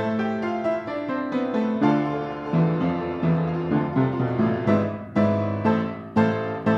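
Piano music, with notes and chords struck about twice a second over a shifting bass line.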